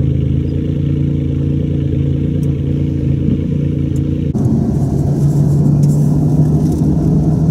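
Car engine running with a steady low hum; about four seconds in the sound changes abruptly to louder engine and road noise with a hiss, as of a car under way.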